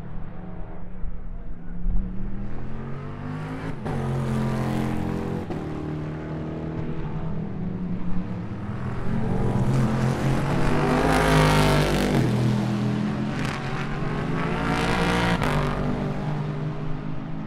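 Race cars' engines passing through a corner one after another, the engine note rising and falling as each goes by, with the loudest pass about eleven seconds in and another near fifteen seconds.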